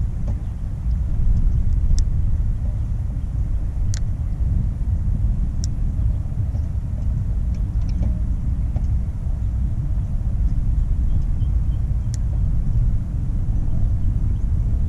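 Steady low rumble of wind buffeting the microphone, wavering in level, with a few sharp isolated ticks.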